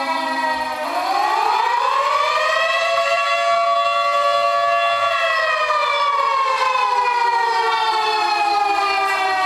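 A siren wailing: its pitch rises about a second in, holds for a few seconds, then slowly falls away.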